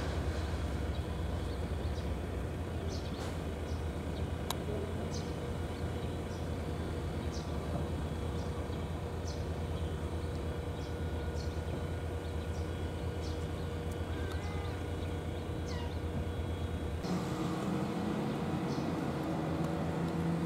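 Outdoor background: a steady low rumble with short, faint high chirps every second or so. The rumble drops away near the end.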